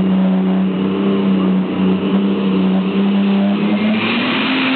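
Super stock pulling tractor's engine running steadily just after a full pull, its pitch rising slightly about four seconds in.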